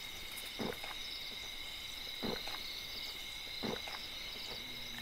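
Three soft gulps about a second and a half apart as makgeolli is swallowed from a cup, over a steady high chirring of insects.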